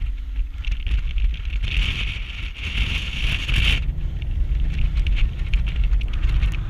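Wind buffeting the camera's microphone, a steady low rumble.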